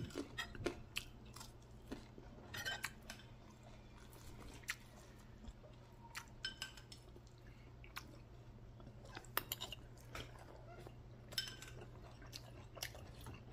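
Faint eating sounds: a person chewing, and a metal spoon clicking and scraping against plates in scattered soft clicks.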